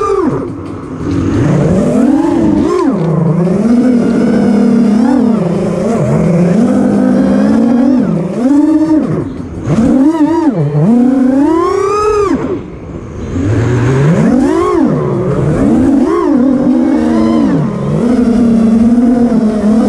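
FPV freestyle quadcopter's four brushless motors (2207.5, 1800 kV) spinning 5-inch tri-blade props, whining with a pitch that swoops up and down constantly as the throttle is punched and cut. The pitch drops away in short lulls about a second in, about nine and a half seconds in, and again near thirteen seconds.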